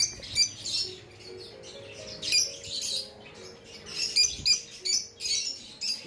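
A flock of caged aviary birds, budgerigars among them, chirping and chattering in many short, high calls that come in quick clusters.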